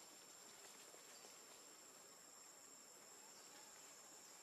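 Faint, steady high-pitched drone of insects.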